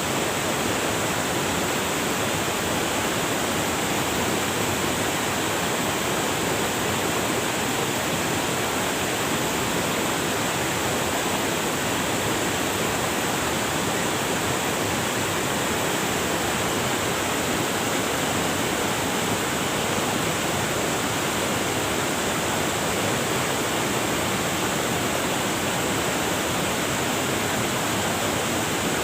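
River water rushing over rocks, a steady, even rush with no breaks.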